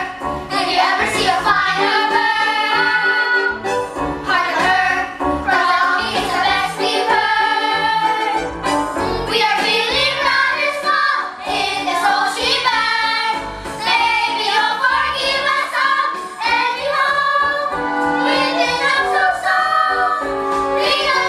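A cast of young voices singing a musical-theatre song together over instrumental accompaniment, with many voices at once.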